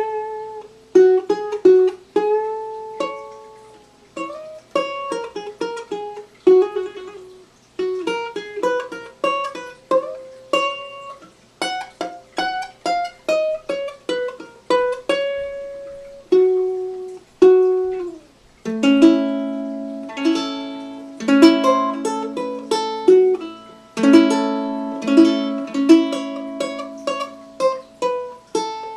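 Handmade tenor ukulele with a Western Red Cedar top and Dalbergia granadillo back and sides, played fingerstyle: a plucked single-note melody that moves into fuller picked chords with lower notes about two-thirds of the way through.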